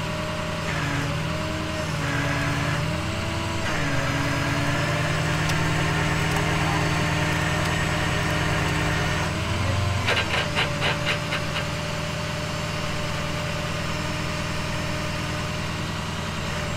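Tow truck engine running steadily while it powers the winch pulling a stuck box truck, its pitch dipping and rising a few times. A quick run of rapid clicks lasts about a second and a half, roughly ten seconds in.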